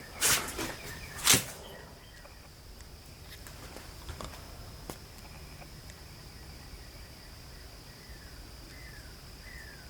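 Two sharp knocks in the first second and a half, then a steady high insect drone with a few faint clicks, and near the end three short falling bird calls.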